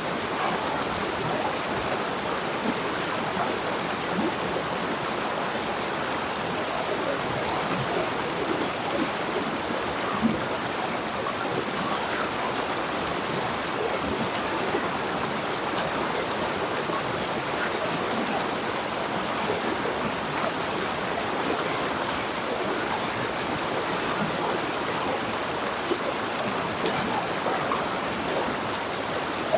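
River water flowing and babbling over rocks, a steady rushing splash with small gurgles.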